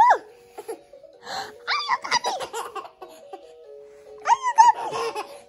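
Baby laughing and squealing in bursts, loudest right at the start and again about four seconds in, over a simple tune of plain single notes.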